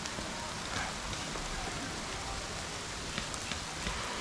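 Rain falling steadily, an even hiss with a few faint drop ticks.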